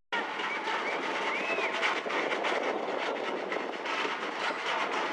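Ambient sound of an amateur football match: a steady noisy wash with faint distant shouts and calls from the pitch and stands. It drops out for an instant at the very start.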